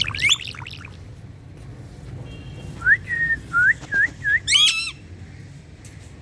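Pet green parrot whistling and chirping: a quick flurry of chirps at the start, then a row of about five short rising whistled notes, ending in a brief harsher call.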